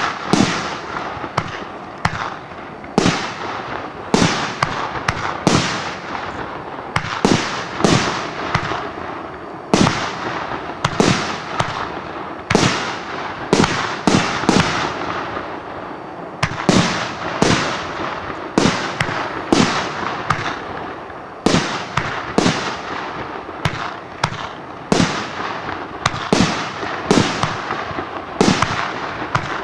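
Category 4 ring shells firework cake firing in a steady sequence: a sharp bang about once a second as shells launch and burst, each trailing off into an echoing rumble.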